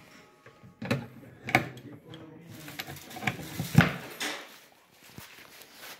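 Irregular knocks and clicks as a hand handles a black latch strap on a wooden case, about six in all, the loudest about four seconds in.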